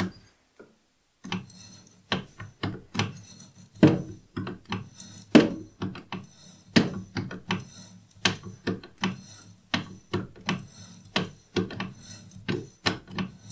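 Slotting tool in a milling machine's collet scraping through the bore of a cast aluminium hand wheel, cutting an internal keyway one quill stroke at a time with light cuts of about 0.05 mm and cutting oil. Short, sharp scraping strokes, about two to three a second, starting about a second in: the shaper-like noise of slotting on a mill.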